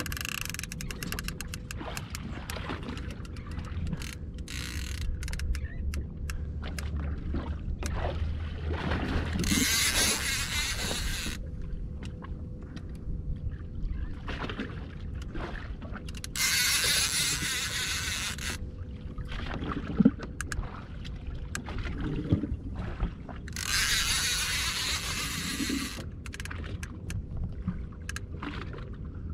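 Small boat's outboard motor running low and steady, with quick fishing-reel clicks in the first several seconds and three spells of wind hiss on the microphone.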